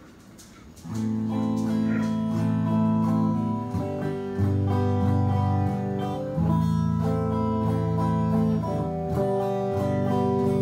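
Electric bass guitar played through an Ampeg Portaflex B-15-N tube bass amplifier and speaker cabinet. A run of sustained plucked notes begins about a second in, with a clean tone.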